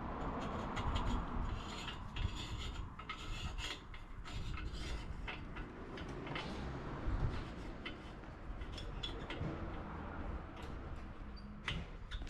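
Rubbing and scraping with many short, scattered clicks and light taps.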